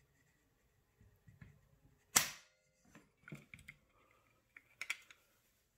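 Beretta A400 shotgun dry-firing as a trigger pull gauge draws the trigger: one sharp snap of the hammer falling about two seconds in, then a few lighter clicks and knocks of handling.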